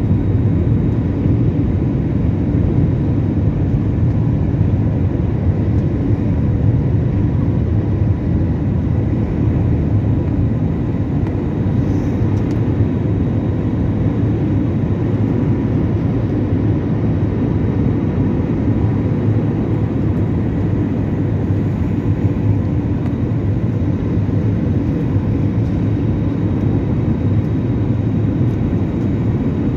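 Jet airliner's engines running steadily during the climb after takeoff, heard inside the passenger cabin: an even low rumble with a few faint thin tones above it.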